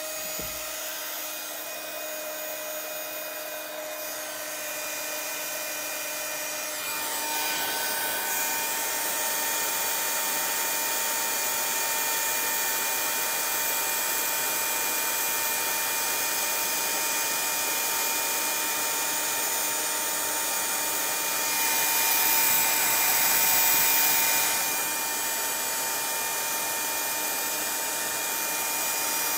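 Craft heat tool (embossing heat gun) blowing steadily with a motor whine, melting embossing powder on a paper tag. It gets louder and its whine changes pitch about seven seconds in, and it is louder again for a few seconds past the two-thirds mark.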